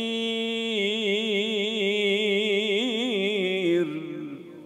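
A man's solo Quran recitation: the final word 'al-masir' is drawn out in one long melodic note. It is held level at first, then turns into a wavering, ornamented run, and fades out about four seconds in.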